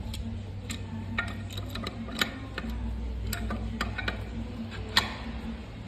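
Metal brake parts of an MTZ tractor clicking and tapping against each other as they are fitted by hand: a string of irregular sharp clicks, two of them louder, over a steady low hum.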